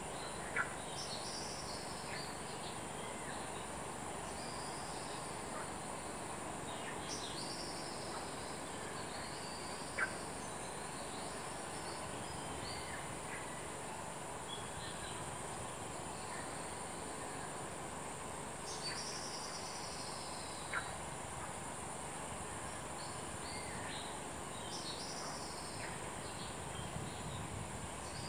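Steady high insect drone over a constant hiss, with a bird giving high calls that slide downward, repeated every few seconds, and a few short sharp ticks.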